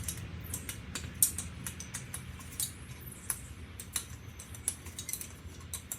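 Irregular light metallic clicks and taps of bolts and small metal parts being handled, over a low steady hum.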